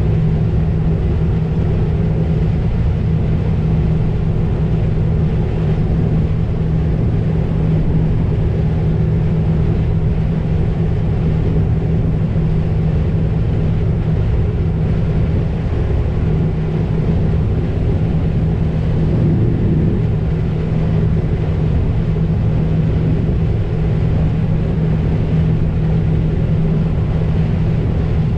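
New Holland TR88 combine harvester running under load while harvesting corn, heard from inside the cab: a steady drone with a constant low hum.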